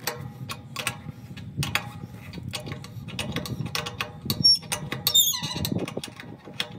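Clicks and clinks of a wrench working the threaded brass fitting at the top of a wheel-line sprinkler riser loose, with a brief squeal falling in pitch about five seconds in.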